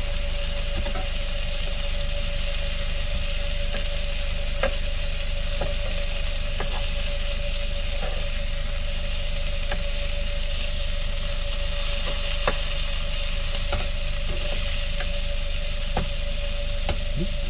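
Vegetarian burgers frying in a Ridge Monkey pan: a steady sizzle, with a few light clicks of a utensil against the pan and a faint steady hum underneath.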